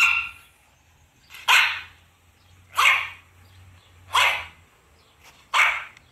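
Dog barking: five single barks, evenly spaced about a second and a half apart.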